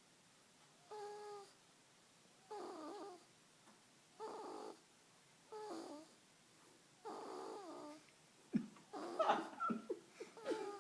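A person snoring in sleep: a short, pitched snore about every second and a half, then a louder, irregular run of snorts in the last two seconds.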